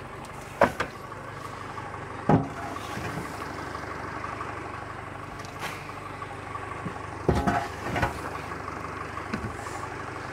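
An engine idling steadily, likely the tractor with the hay wagon, under about half a dozen sharp knocks and scrapes of pitchforks working packed hay and pitching it onto a wooden wagon bed.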